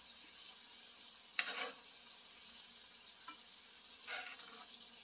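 Sauce simmering with a soft steady sizzle in a nonstick frying pan as a spoon scoops it up and pours it over fried kingfish steaks. Short swishes of spoon and sauce come about a second and a half in, faintly near the middle, and again near the end.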